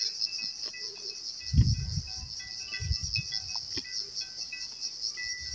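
Steady high-pitched chorus of insects buzzing, with a brief low rumble about one and a half seconds in and another around three seconds.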